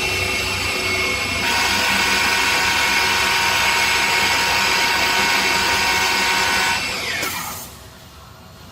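High-speed cutting spindle of a CNC wood lathe running with a steady whine, getting louder about a second and a half in, then winding down with a falling whine about seven seconds in and leaving a quieter machine hum.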